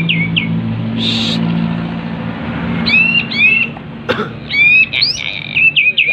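Kapas tembak songbird singing in quick bursts of short, down-slurred whistled notes, the busy song of a bird in breeding condition. A steady low hum runs beneath it through the first part, with a brief hiss about a second in and a sharp click a little after four seconds.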